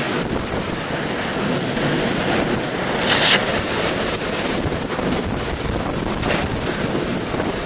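Hurricane eyewall wind, estimated at about 130 mph, blowing hard through a corridor and buffeting the microphone as a steady, dense rush. A brief louder hiss cuts in about three seconds in.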